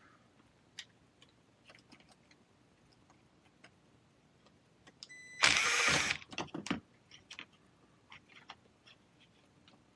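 Small metal parts and tools being handled while working on an RC truck's steering: light scattered clicks, then a loud rattling burst lasting about a second about halfway through, followed by a few shorter rattles.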